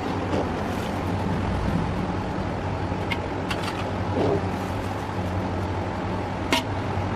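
A perforated metal ladle clinking against an aluminium pot three times as part-cooked rice is scooped and layered, the last clink the loudest and briefly ringing, over a steady low rumble.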